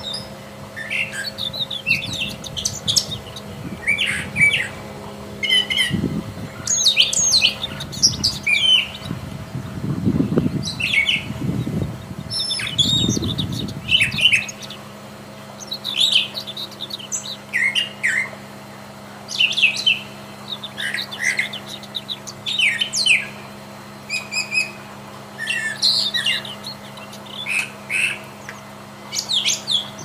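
Brown thrasher singing: a long run of short, varied, fast-changing phrases with brief pauses between them, over a steady low hum and, in the first half, a low rumble.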